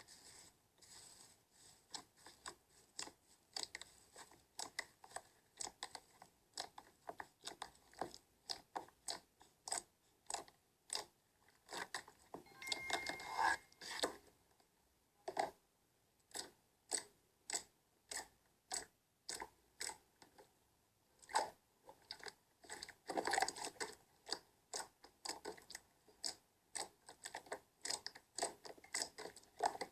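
Slime being squeezed and pressed by hand, giving a long run of sticky clicks and pops, about two or three a second, with denser crackly bursts in places.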